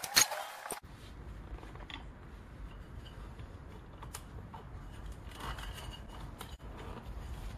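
Fast-forwarded tyre-lever work on a motorcycle wheel, sped up and high-pitched, with one loud click, cutting off under a second in. Then a faint low rumble with a few scattered light clicks and taps as the tyre bead is worked back into the spoked rim by hand.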